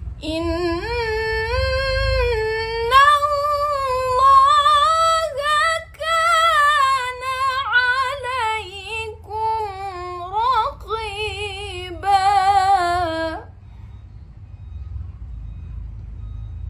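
A woman's solo Qur'an recitation in the melodic tilawah style: long sustained phrases with ornamented, wavering pitch turns, climbing higher through the middle, ending about thirteen and a half seconds in. A low steady rumble runs underneath.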